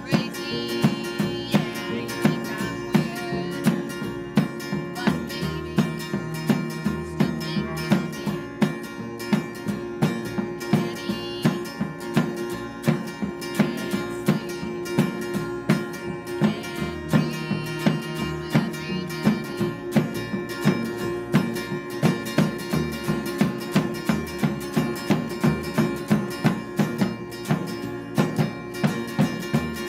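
A small acoustic band of acoustic guitar, cello, drum kit and upright bass playing a song together with a steady beat.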